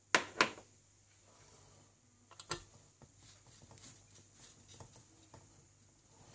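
Glass cake plate being handled and shifted on a glass hob: two sharp clicks near the start, more clicks about two and a half seconds in, then a scatter of light ticks and taps.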